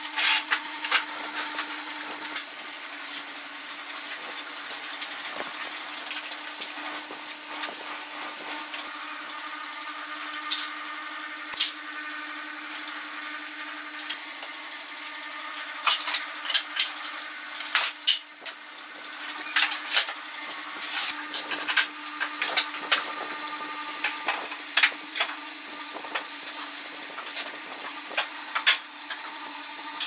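Pencil scratching on a wooden board as lines are drawn along a metal ruler and square, with scattered clicks and taps as the metal tools are moved and set down on the wooden workbench. A steady low hum runs underneath.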